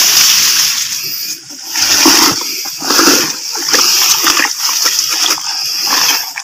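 Water splashing and sloshing, with wet grass rustling, as a PVC-pipe eel trap is pulled from the swamp and handled, coming in swells about once a second.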